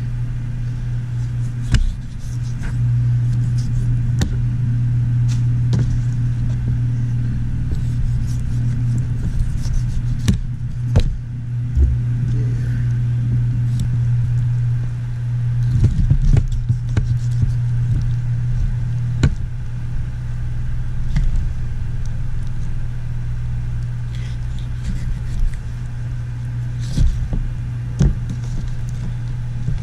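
A steady low machine hum, with scattered short knocks and taps as a knife trims meat and bone on cardboard.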